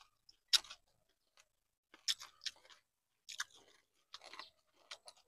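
A person chewing a mouthful of food close to the microphone: faint, short mouth clicks and smacks at irregular intervals, about eight over a few seconds.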